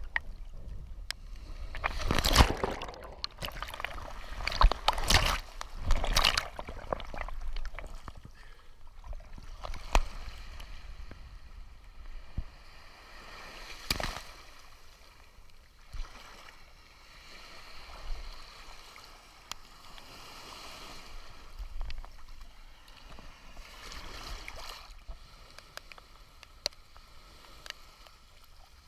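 Sea water sloshing and splashing close to the microphone, with a few loud washes in the first several seconds and softer surging swells every few seconds after that.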